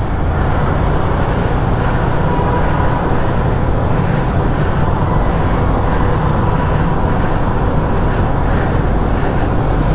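Yamaha MT-15's single-cylinder engine running steadily as the motorcycle rides at low speed in second gear inside a road tunnel, mixed with wind rush on the microphone.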